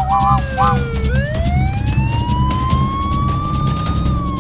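Cartoon police car siren wailing: its pitch falls for about a second, then climbs slowly for about three seconds, over background music with a steady beat. A few short chirping blips come near the start.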